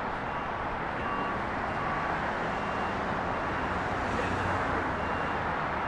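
Steady distant rumble of jet aircraft and airport ground traffic, with faint short beeps repeating in the background.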